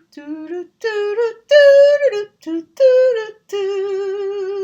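A woman's voice singing a short tune alone, in separate notes that rise and fall, ending on a long held note with a slight wobble.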